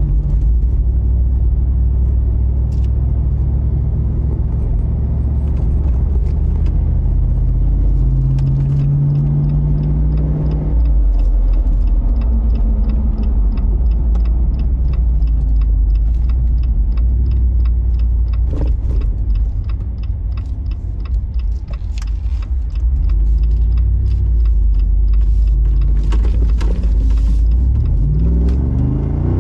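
Jeep Wrangler driving: a steady, loud low engine and road rumble, with many light clicks and rattles through the middle stretch. Near the end the engine note climbs as it accelerates.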